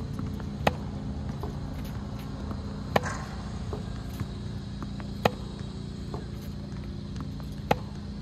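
Four sharp knocks, evenly spaced a little over two seconds apart, over a steady low hum.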